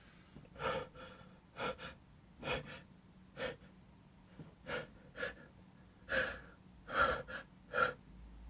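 A man's short gasping breaths, about a dozen in uneven succession, strongest near the end: the catching in-breaths of an allergic sneezing fit set off by flower pollen.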